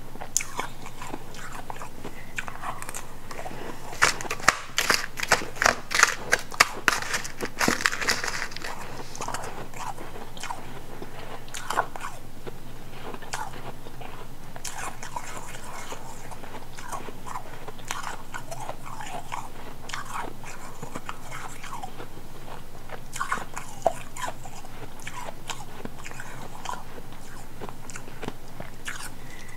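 A person biting and chewing powdery ice close to a lapel microphone, crunching. A dense burst of quick crunches comes about four seconds in, followed by slower, scattered crunches.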